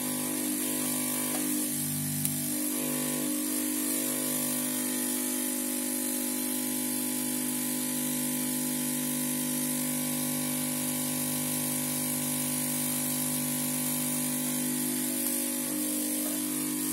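Hot air rework station blowing steadily: a constant airy hiss over a steady motor hum.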